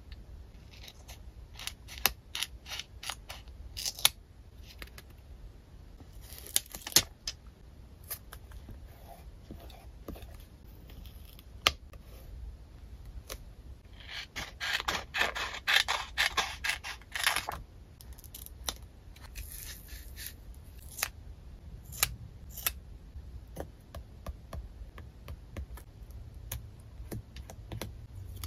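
Small scissors snipping flower stickers out of a clear plastic sticker sheet: scattered short, crisp cuts, with a dense stretch of crackly cutting about halfway through. The sheet and paper rustle and tap between the cuts.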